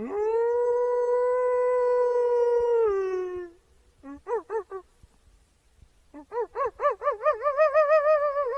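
Wolf howling: one long howl that rises into a steady held note for about three seconds and sags at the end, then a few short wavering notes, then a long howl with a fast wobble in pitch.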